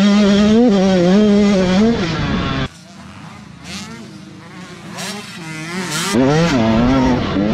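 Dirt bike engine heard up close from the rider's helmet camera, loud, its pitch wavering up and down with the throttle; about two and a half seconds in it cuts to a much quieter, more distant dirt bike engine that grows louder and rises in pitch as the bike accelerates toward the camera near the end.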